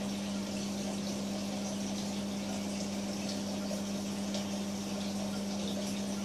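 A marine reef aquarium's pumps humming steadily over an even hiss of circulating water.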